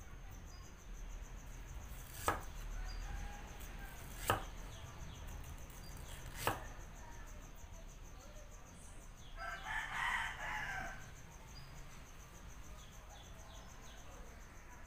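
Meat cleaver chopping through ginger onto a thick wooden chopping block: three sharp knocks about two seconds apart. About ten seconds in, a rooster crows once for about a second and a half.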